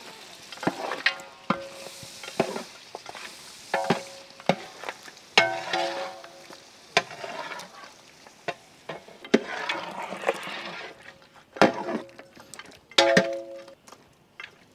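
A long-handled ladle stirring mutton and yogurt in a large metal cooking pot: repeated scrapes and sharp knocks of the ladle against the pot, a few of them ringing briefly, over a faint sizzle of the meat frying.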